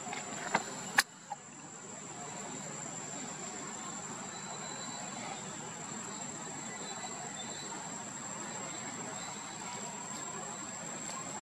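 Steady insect chorus: a continuous high-pitched trill over a soft even hiss, with one sharp click about a second in.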